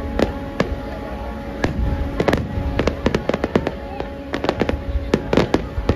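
Fireworks display: rapid, irregular bangs and crackles coming in clusters, over a low continuous rumble.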